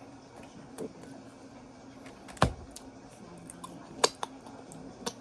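A few short, sharp clicks and knocks: one about a second in, a loud one about two and a half seconds in, two close together around four seconds, and one near the end, over a faint steady background.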